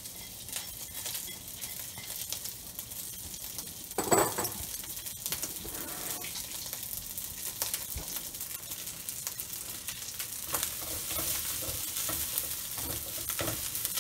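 Cooked rice sizzling in hot oil in a wok, with a loud clatter about four seconds in. From about ten seconds in, a spatula scrapes and turns the rice in repeated strokes as the stir-frying begins.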